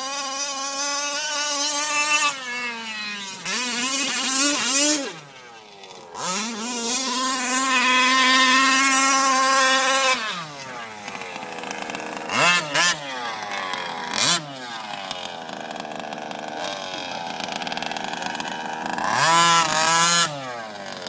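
Losi 5ive-T 1/5-scale gas RC truck's two-stroke engine being driven hard: it revs up and holds high revs through long full-throttle runs, drops back between them, gives a few short sharp throttle blips in the middle, and revs hard once more near the end.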